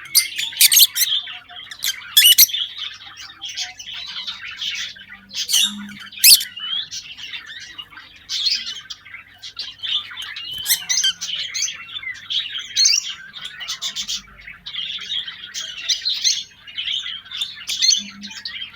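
African lovebirds chattering non-stop in high, rapid chirps, broken several times by sharp, loud shrieks.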